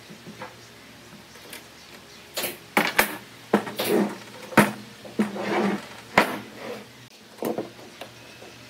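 Wooden knocks and scrapes as a clamped hardwood table frame is lifted, tilted and set back down on the workbench: a run of sharp knocks with short scrapes, starting about two and a half seconds in and dying away near the end.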